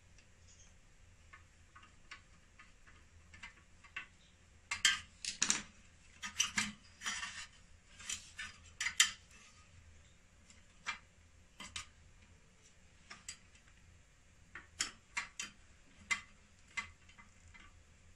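Clicks, taps and short scrapes of metal and plastic parts being handled inside an opened power inverter's sheet-metal chassis. A quick cluster in the middle, then scattered single clicks.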